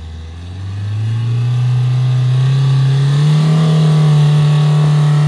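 Mahindra Thar Roxx engine accelerating along a rough dirt track. Its pitch rises over the first three seconds and then holds steady and loud.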